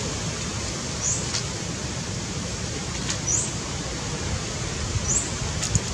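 Steady outdoor hiss with a short high chirp repeated three times, about two seconds apart, and a couple of faint clicks near the end.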